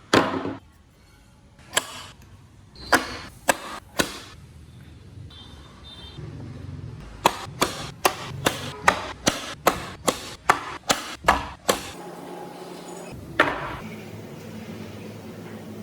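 Sharp knocks of a tool striking wood: a few scattered blows, then a quick run of about a dozen at roughly three a second that stops about twelve seconds in. One more knock follows over a steady low hum.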